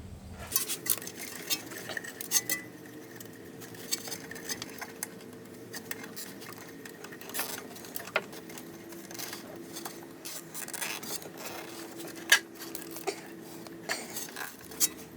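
Hand work on a car's underside: scattered small clicks and light metallic clinks of parts and tools being handled, with one sharper click about three-quarters of the way through.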